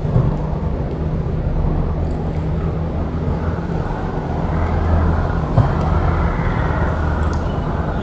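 Steady low background rumble with a low hum, broken by two light knocks, one just after the start and one about five and a half seconds in.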